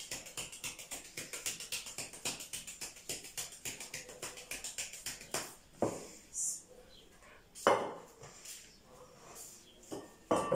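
Flour being sifted through a round wooden-framed sieve, its rim shaken and knocked in a quick even rhythm of about five taps a second. After about five seconds the rhythm stops and a few separate louder knocks follow as flour is scooped into the sieve with a metal bowl.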